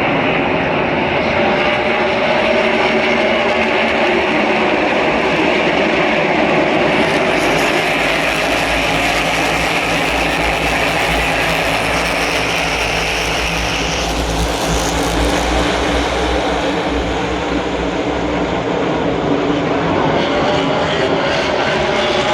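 A field of NASCAR Cup cars' V8 engines running laps, a continuous engine roar. It swells louder and deeper from about seven to sixteen seconds in as the pack runs past.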